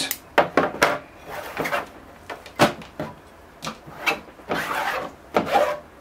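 Bonsai root scissors snipping through spruce roots: a string of short, sharp snips with rustling of the root mass between them.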